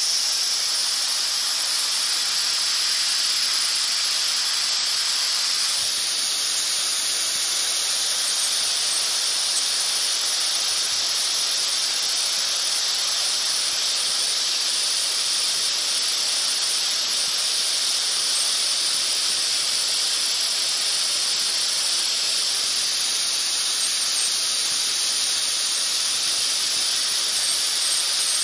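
Compressed air hissing steadily from a handheld air blow gun fed from a switched-off 8-gallon air compressor's tank, blowing out the air hose to purge condensation water.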